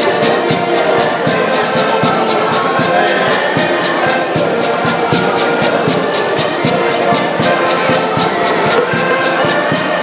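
Live band music: a melody over a steady, quick drum beat.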